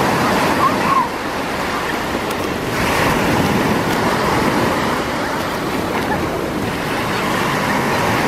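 Small sea waves breaking and foaming surf washing up a sandy beach, a steady rush that swells again about three seconds in.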